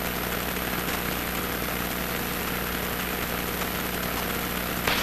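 Cessna 150's four-cylinder Continental O-200 engine and propeller idling with a steady hum.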